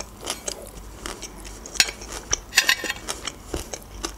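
Metal fork clinking and scraping against a ceramic plate of cabbage salad, with a denser clatter of clicks a little past halfway, along with chewing.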